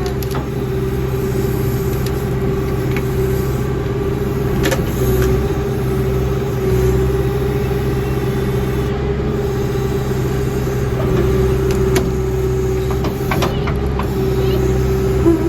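Engine running steadily at constant speed: a low hum with a steady high whine over it.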